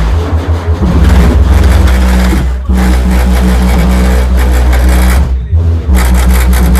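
Car audio subwoofers playing music loud, with long held bass notes that drop out briefly twice.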